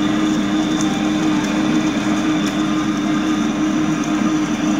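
Tabletop wet grinder running steadily with a low, even hum as its roller stone grinds soaked rice into idli batter, which is nearly fully ground to a fine, slightly grainy consistency.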